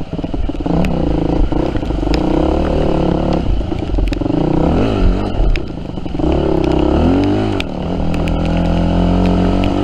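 Yamaha WR250F dirt bike's single-cylinder four-stroke engine revving up and down as it is ridden over rough trail, the throttle easing off briefly a couple of times, with scattered sharp knocks.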